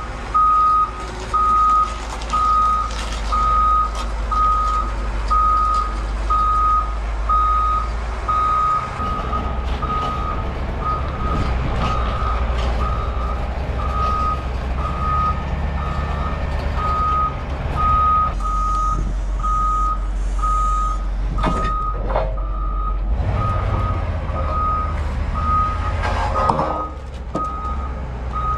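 Heavy-equipment backup alarm beeping steadily at one high pitch over the low rumble of a running diesel engine, with a few sharp metallic clanks in the later seconds.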